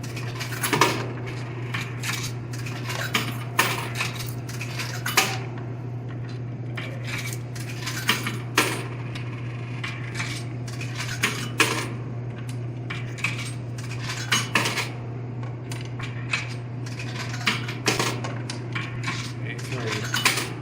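Quarters being fed one at a time into a vending machine's coin slot, each dropping through the coin mechanism with a sharp metallic clink, irregularly spaced over many seconds. A steady low hum runs underneath.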